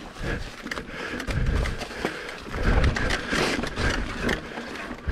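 Mountain bike rolling over a rocky trail: tyres crunching over rock while the bike rattles with a quick run of clicks and knocks. Wind buffets the microphone in low rumbles twice, about a second and a half in and again near three seconds.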